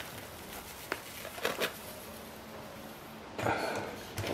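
Quiet handling sounds: canning and pickling salt pouring from its cardboard box into a plastic food container, a light tick about a second in, and a louder scuff of the plastic container being handled about three and a half seconds in.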